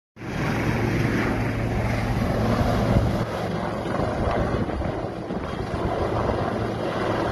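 Wind buffeting a phone's microphone on the deck of a container ship under way, with the rush of the sea and a steady low hum underneath.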